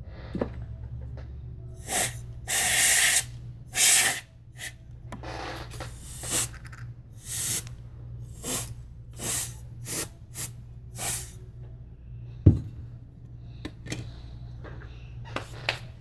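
A run of short, hissy rustling or scraping noises, about a dozen of them through the middle, then a single sharp knock near the end, over a steady low hum.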